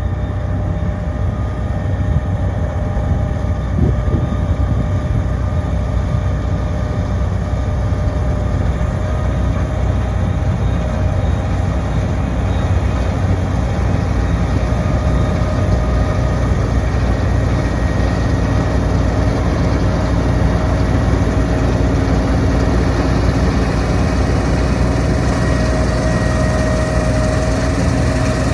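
New Holland CR11 combine running steadily while harvesting wheat: a heavy diesel drone with a few steady whining tones from the machinery over it.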